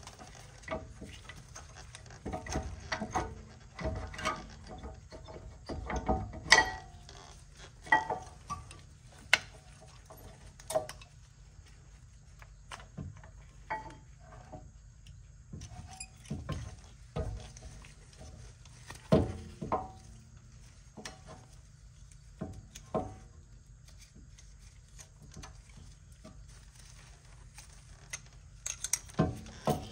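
Intermittent metallic clinks and knocks from handling a rear disc brake caliper and its pads, some with a short metallic ring.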